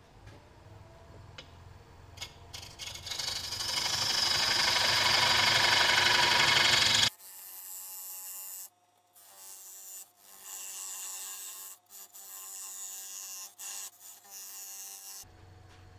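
Wood lathe spinning up with a rising motor whine, then a parting tool cutting into the spinning wood. The cut gets louder over a few seconds and stops abruptly about seven seconds in, followed by fainter, intermittent scraping.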